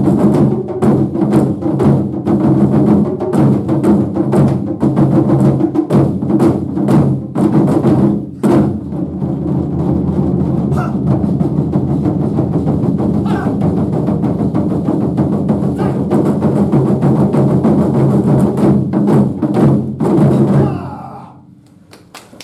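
Ensemble of Japanese taiko drums playing loudly with dense strikes, building into a fast continuous roll that stops suddenly about 21 seconds in, leaving the drums ringing briefly.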